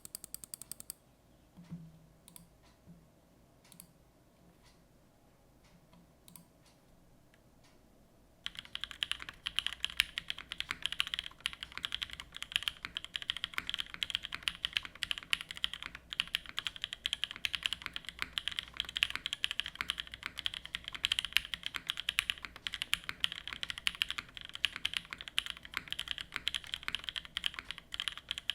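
Mechanical keyboard typing on a top-mount Matrix 2.0 Add with an aluminium plate, NovelKeys Cream linear switches on stock springs and GMK keycaps. A quick run of keystrokes opens, then a few single key presses, and about eight seconds in steady fast typing starts and keeps going.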